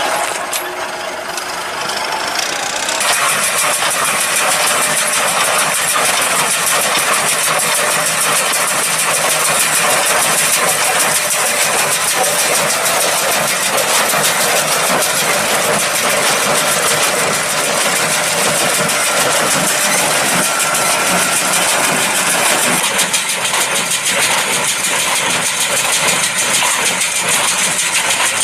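New Holland TS100 tractor's diesel engine running under load while driving a New Holland 575 small square baler, with the baler's machinery running alongside. The sound grows louder and fuller about three seconds in, then stays steady.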